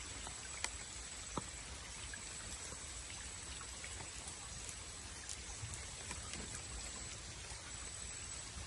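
Steady hiss of water or rain with scattered small ticks and drips, under a thin, steady high whine.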